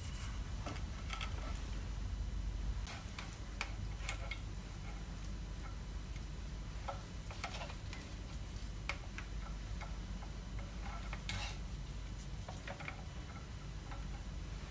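Irregular light clicks and taps from kitchen utensils and cookware being handled, over a steady low hum.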